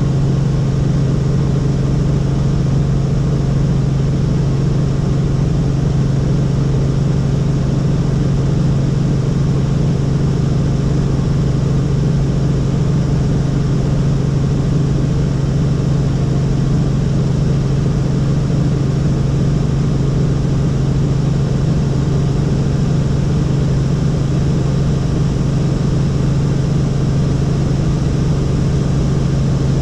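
Helicopter in steady cruising flight, heard from inside the cabin: a loud, unchanging drone of engine and rotors with a strong low hum.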